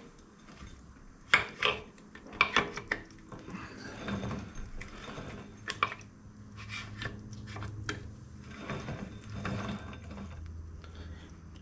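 Scattered metal clicks, knocks and ratcheting from lathe gears and parts being worked by hand, with a faint low hum under the second half.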